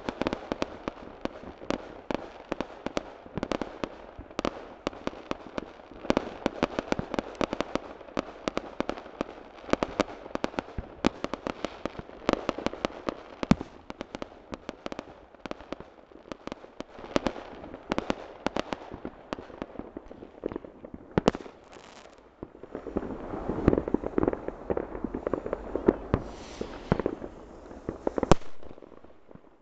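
Firework rockets and firecrackers going off in a dense, irregular stream of bangs and pops, with a single loudest bang near the end.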